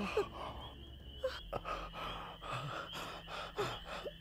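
A person breathing heavily in gasping breaths, about one a second, agitated and trying to calm down.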